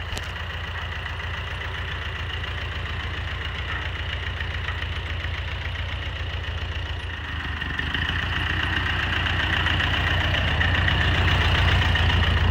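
Ford 8N tractor's four-cylinder gasoline engine running at low speed, a steady even rumble that grows louder from about halfway through.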